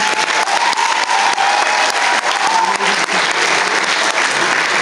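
Audience applause, a dense patter of many hands clapping, with one long held high note over the first few seconds.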